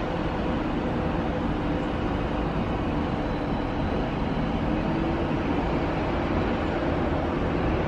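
Steady outdoor rumble and hiss with a faint, even mechanical hum, unbroken throughout.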